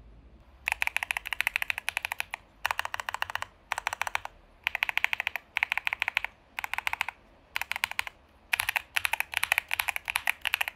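Typing on an Epomaker EK21-X mechanical number pad fitted with Wisteria switches: quick runs of keystrokes in bursts of about a second, with short pauses between, getting busier near the end.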